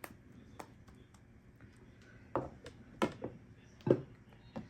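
A utensil knocking and tapping against a bowl and cake tin as thick fruit cake batter is spooned into loaf pans: about six irregular knocks, the loudest near the end.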